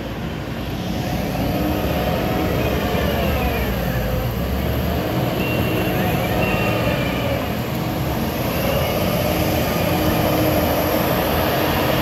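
Diesel engines of a Cat D5 bulldozer and a Kubota skid steer working dirt, running continuously with their pitch rising and falling as the machines work.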